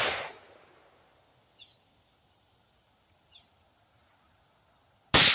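A suppressed rifle shot near the end, fired into the dirt, following the fading tail of an earlier shot. Between the two shots there are two faint short bird chirps and a faint steady high-pitched tone.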